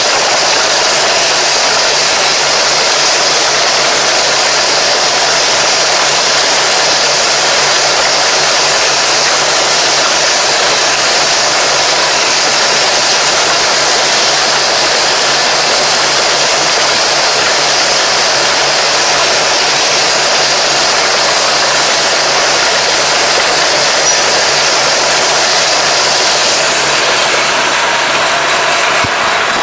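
Tractor engine running steadily as it pulls a ridging and plastic-mulch-laying implement, under a constant loud rushing noise from the working machinery, with a steady low hum throughout.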